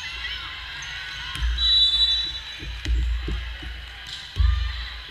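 Volleyballs being hit and bounced on a hardwood gym floor: a run of thumps and smacks, the loudest about four and a half seconds in, over the chatter of players.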